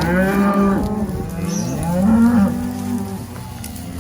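Cattle mooing: several long, overlapping moos as calves that have just been branded are herded back to their mothers.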